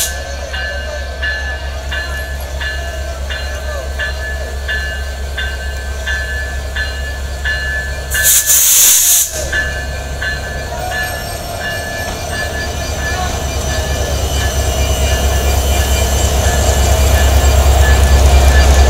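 EMD GT42ACL diesel-electric locomotive, with its twelve-cylinder two-stroke EMD 710 engine, running slowly along the platform. Its engine rumble grows steadily louder as it draws close and passes over the last several seconds. A regular light tick comes about every two-thirds of a second through the first half, and a loud hissing burst about a second long cuts in about eight seconds in.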